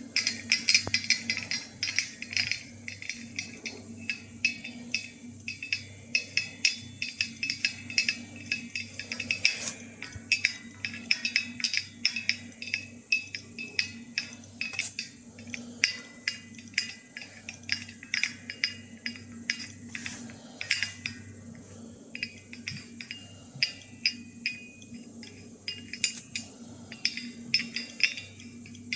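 Glass-and-metal FEU-85 photomultiplier tubes clinking and knocking against each other as they are rolled by hand: many short clinks with a brief high ring, thickest in the first ten seconds and sparser after. A steady low hum runs underneath.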